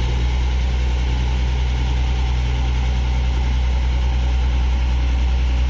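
A large engine idling steadily with a strong, even low hum, unchanged throughout.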